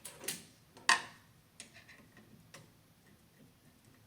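Curtain track carrier arm being snapped into place: a few short clicks, the sharpest about a second in, then a couple of fainter ticks.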